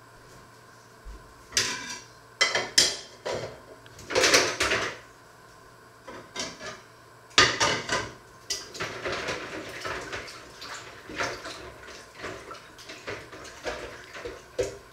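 Dishes and pots clattering at a kitchen sink as they are handled: several sharp, loud clinks and knocks in the first eight seconds, then a busier run of softer clinks and rattles.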